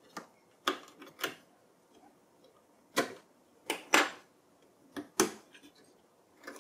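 A series of sharp plastic-and-metal clicks as two DDR4 SO-DIMM memory modules are unlatched and pulled from their slots: the spring retaining clips snapping open and the modules being handled and set down on the desk.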